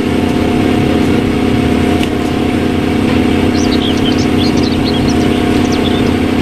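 A truck engine running steadily with an even, unchanging drone. Faint bird chirps come in around the middle.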